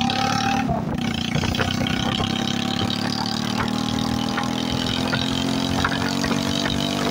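Motorcycle engine running with its silencer removed and a bare bend pipe in its place, a loud, steady, unmuffled exhaust note as the bike is ridden.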